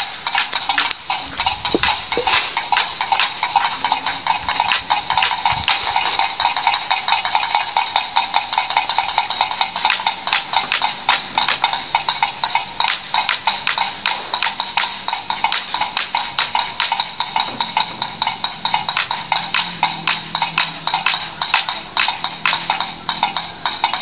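Wind-driven bird-scaring windmill clacking in a steady, fast rhythm of several knocks a second, a rattle meant to drive birds off ripening rice.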